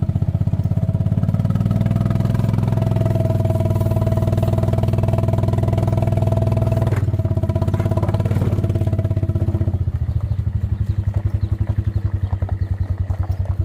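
Small engine running, with a fast, even pulse. It picks up speed slightly about two seconds in and settles back down around seven and ten seconds in.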